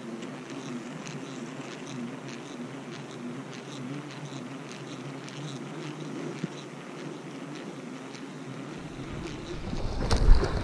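Fishing reel being cranked in a steady retrieve: a low whir that wavers up and down with the turning of the handle, with faint ticking. Near the end a burst of wind buffets the microphone.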